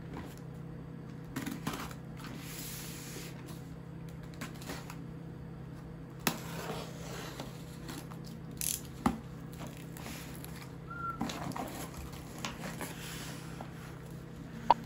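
Cardboard box being opened by hand: a small blade scraping along the packing tape, then the flaps rustling and pulled apart, in scattered short scrapes and taps with a sharp tap near the end. A steady low hum runs underneath.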